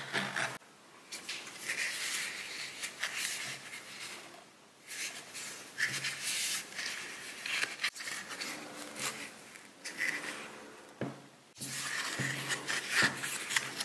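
Cardboard packaging rubbing and scraping in bursts as gloved hands lift a box insert and slide the EarPods' card holder out of its cardboard sleeve.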